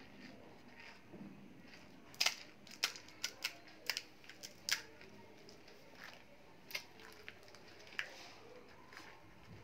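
Crisp fried golgappa (pani puri) shell crackling as fingers break a hole in its top: a quick run of sharp cracks over about two seconds, then a couple of single cracks later.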